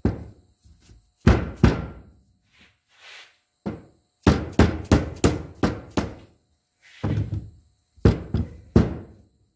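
Repeated hard knocks on a stuck brake slave cylinder to free it: about fifteen sharp blows in irregular groups, with a quick run of eight or so in the middle.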